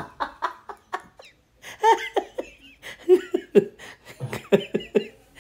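Laughter: runs of quick ha-ha pulses in several fits, the quickest run in the second half.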